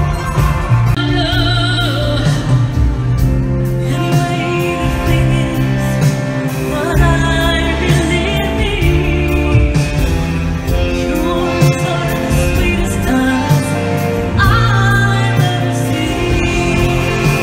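Live concert music with singing: voices carry a melody over a band accompaniment, heard from the audience in a large arena.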